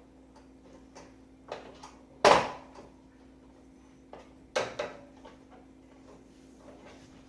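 Plastic trim on a microwave oven door being pried off with a screwdriver: sharp snaps and clicks as its clips let go. The loudest snap comes about two seconds in, with two more close together a little past the middle.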